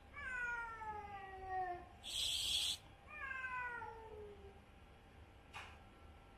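Cats in a standoff: two long, drawn-out yowls, each sliding down in pitch, with a short, loud hiss between them.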